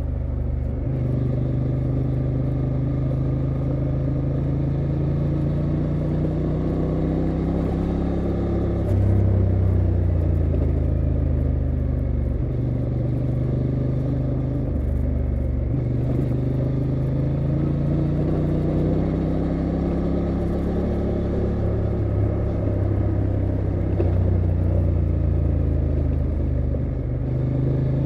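2023 Honda Transalp XL750's 755 cc 270° parallel-twin engine pulling under throttle, its pitch stepping up about nine seconds in, easing back a few seconds later and rising again near the end. Steady tyre noise on gravel and wind noise lie underneath.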